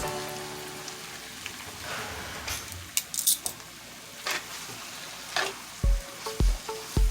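Pasta and pesto sizzling lightly in a hot skillet as it is stirred and tossed, with a few sharp clinks of the utensil against the pan. Background music with a steady beat comes in near the end.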